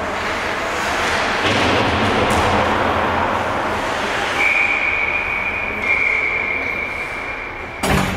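Ice hockey rink sound of skates and sticks on the ice. A steady high tone is held for about three seconds past the middle, and a single sharp bang against the boards and glass comes near the end.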